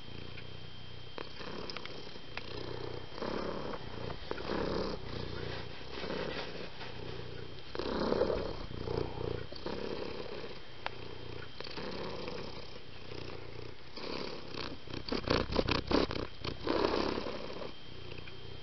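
Cat purring in uneven swells. About fifteen seconds in comes a quick run of sharp clicks or rustles, the loudest part.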